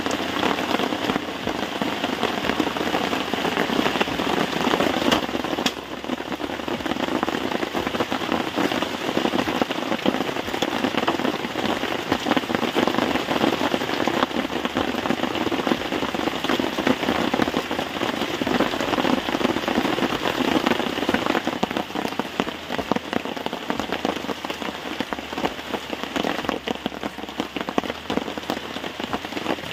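Steady rain falling, a dense continuous patter of drops.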